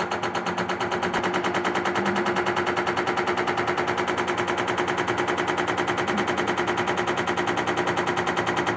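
LG direct-drive front-loading washing machine running with its drum turning, making a loud, rapid, even knocking several times a second over a steady hum. The technician puts the loud noise down to worn drum bearings, 100% certain.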